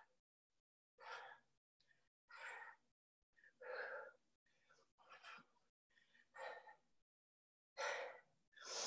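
Faint, heavy breathing of a person working out: about seven quick, breathy exhalations at an even pace, roughly one every second and a quarter.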